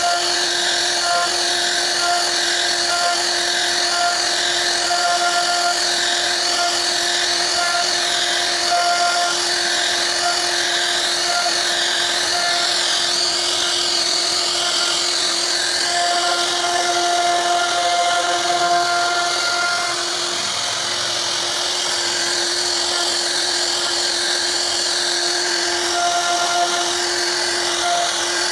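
CNC wood router spindle running at speed while its bit carves a relief into a wooden door panel. It makes a steady whine, over which a higher cutting sound wavers up and down about once a second through the first half.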